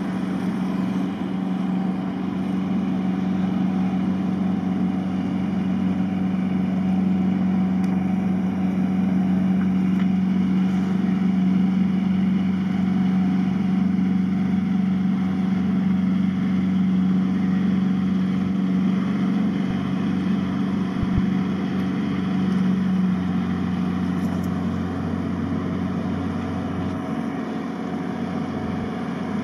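Small tugboat's engine running steadily under load while towing a barge, a low hum that grows louder toward the middle and eases a little near the end.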